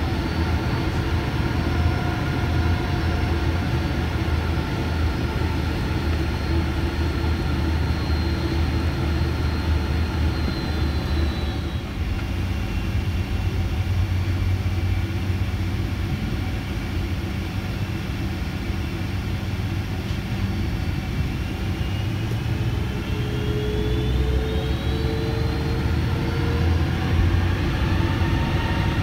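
Boeing 747-400's Rolls-Royce RB211 turbofans heard from inside the cabin while taxiing: a steady low rumble under several engine whines. One high whine stops about twelve seconds in, and another whine rises in pitch near the end.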